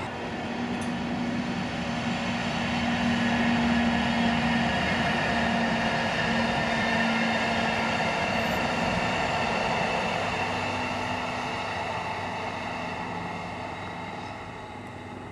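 An electric locomotive hauling a rake of new E131-series electric train cars passes by: a steady rumble of wheels on rails with a low hum. It grows louder over the first few seconds, then slowly fades.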